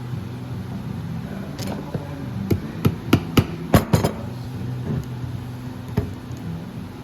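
Hammer striking while a leather boot vamp is crimped over a crimping board: a quick run of about seven sharp strikes in the middle, then a single strike near the end.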